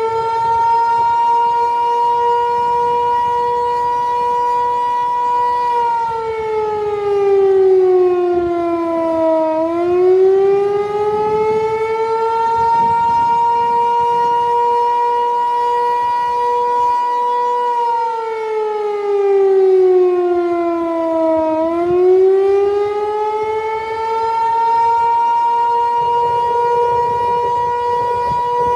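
Federal Signal 508 outdoor warning siren sounding a loud two-tone howl whose rotator is broken. The pitch holds steady, sinks slowly for a few seconds, then climbs back up, twice over.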